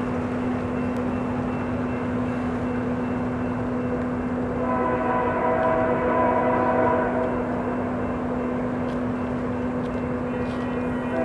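Union Pacific freight train's diesel locomotive approaching with a steady rumble, its air horn sounding about halfway through and again near the end.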